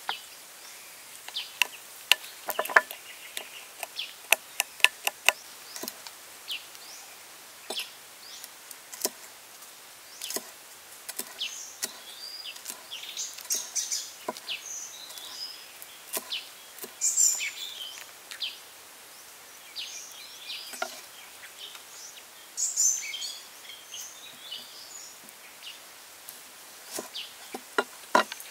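Metal spoon clinking and scraping in a small ceramic bowl while stirring a dipping sauce, then a knife chopping herbs on a wooden board: many sharp clicks and taps, densest in the first several seconds. Birds chirp in the background.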